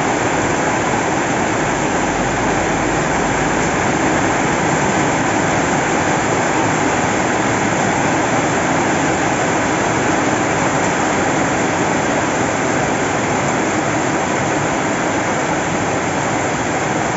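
Heavy downpour of rain falling steadily, an even, unbroken rush of sound.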